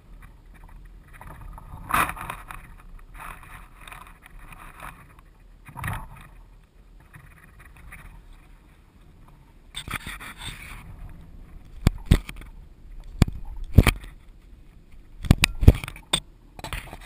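Rustling and scraping picked up by the GoPro on a grounded RC plane as someone walks up through the grass. In the last few seconds come several sharp knocks and clicks as the plane is handled.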